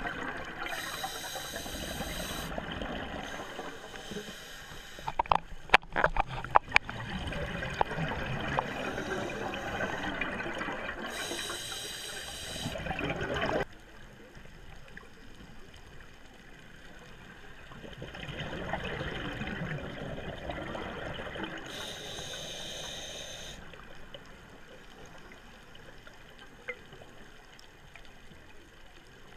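Scuba breathing heard underwater: a regulator's breaths and bubbling exhalations, with bursts of hiss every few seconds over a steady watery wash, and a cluster of sharp clicks about six seconds in. About halfway through the sound drops abruptly to a quieter underwater hush, with a few more breaths.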